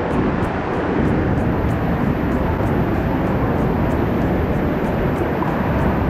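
Waterfall water pouring, a loud, steady rush of noise.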